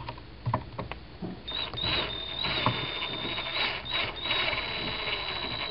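A hand screwdriver driving a screw into the plastic shroud of a Mossberg .22 tactical rifle. A few scattered clicks, then from about a second and a half in a steady high-pitched squeal as the screw turns.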